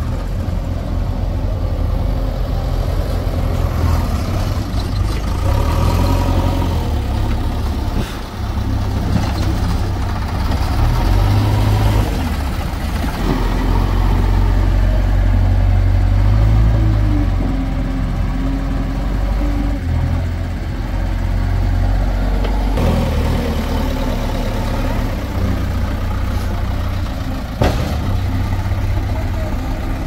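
Heavy diesel machinery running, a backhoe loader and tractors, the engine note rising and easing with load. There is a sharp knock about eight seconds in and another near the end.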